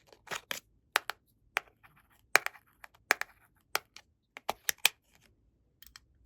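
Scattered sharp clicks and taps of small plastic toy pieces being handled and set down, irregularly spaced, with a short pause near the end.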